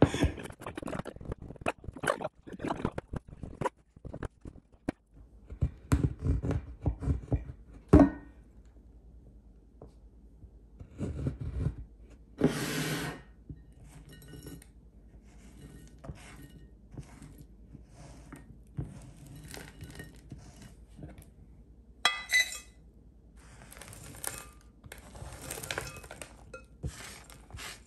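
A knife chopping a bar of dark chocolate on a cutting board: a quick run of crisp cuts, ending with one harder stroke about eight seconds in. Later, chocolate shavings are scraped with a spatula and tipped off the board into a pot, falling in rustling, pattering bursts.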